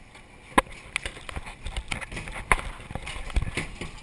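Free Fall drop-tower ride car rolling along its track toward the lift, its wheels and carriage giving irregular knocks and clacks. The sharpest knocks come about half a second in and about two and a half seconds in.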